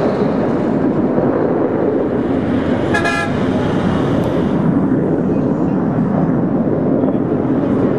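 Boeing F/A-18 Hornet jet flying past overhead, its twin jet engines a loud, steady rushing noise. About three seconds in, a short horn toot sounds once.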